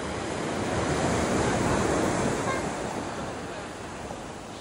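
Sea surf breaking on the shore: a rushing wash of waves that swells to its loudest about two seconds in and then ebbs away.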